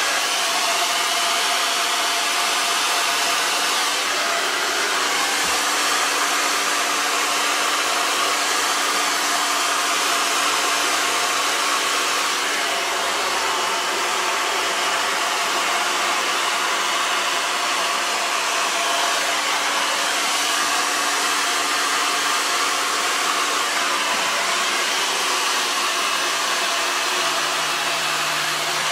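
Handheld hair dryer running steadily: a constant rush of air with a steady motor hum, blowing wet poured paint across a tabletop.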